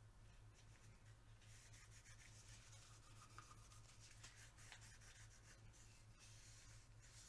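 Near silence: a steady low hum with faint rubbing and small handling clicks as a cloth works lubricant onto metal pistol parts.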